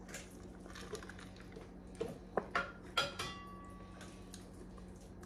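A drinking glass knocked and set down on a hard surface: a few sharp clinks about two to three seconds in, the last and loudest one ringing briefly.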